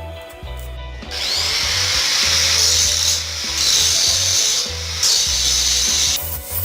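Homemade table saw cutting through wood: a loud, hissing cut starts about a second in, falters briefly twice and stops shortly before the end. Background music with a steady beat plays underneath.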